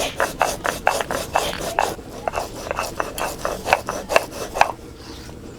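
Poppy seeds being ground by hand: quick, repeated rubbing and rasping strokes, several a second, which stop about a second before the end. The seeds are being ground lightly to a coarse paste, not a fine one.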